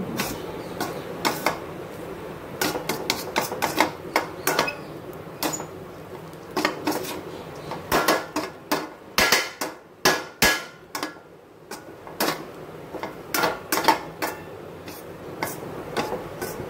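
Metal spatula scraping and clinking against a stainless steel pan while stirring rice, in quick irregular taps with a brief lull a little past the middle.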